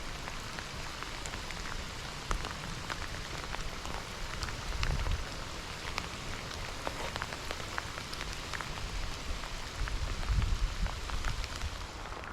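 Rain falling, with many separate drops ticking over a steady patter. A low rumble comes twice, about five and ten seconds in.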